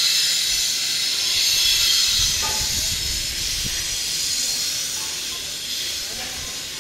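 A steady high hiss, loudest in the first two seconds and easing a little toward the end.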